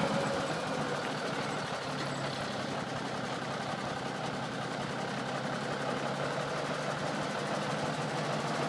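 Truck engine idling steadily, a faint low hum under an even wash of noise.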